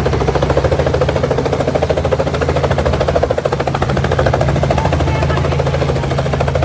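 Light helicopter running on the ground: a fast, even chop of the two-blade main rotor over a steady engine hum.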